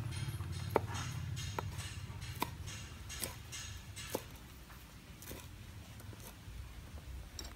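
Cleaver chopping fresh red chilies on a round wooden chopping board: sharp single knocks about one a second, spacing out slightly toward the end.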